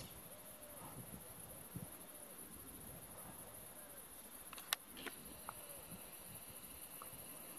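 Faint outdoor ambience with a short, arched animal call repeating every second or two, and a single sharp click a little past halfway.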